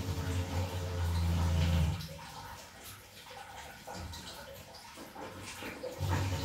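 Water running out of a hot-water geyser into a container as the geyser is drained for an element change. The flow stops about two seconds in and starts again near the end.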